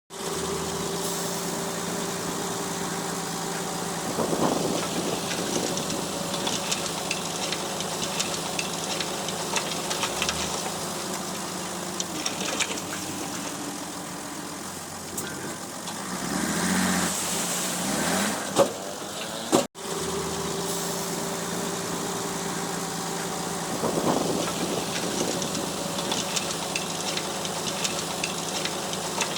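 Heavy earthmoving machine's engine running at a steady speed, with scattered clanks and knocks. The sound cuts out abruptly just before 20 seconds in, then starts again.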